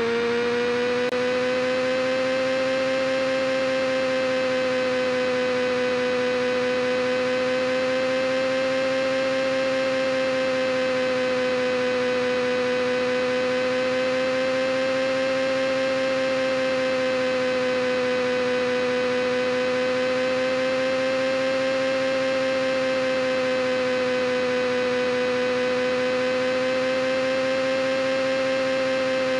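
A steady, even hum with a strong buzzing tone, its pitch swaying slightly up and down every few seconds.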